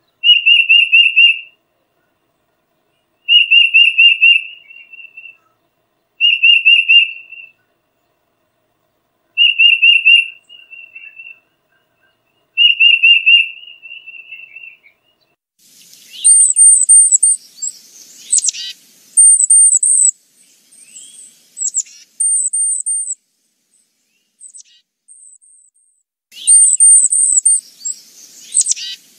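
Tufted titmouse song: five short whistled phrases, each a quick run of repeated notes, coming about three seconds apart. About halfway a hissier recording takes over, with short series of very high, thin notes and quick downward-sweeping chirps.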